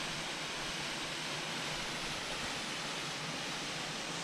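Ouzel Falls rushing: a steady, even hiss of falling water that stops suddenly at the end.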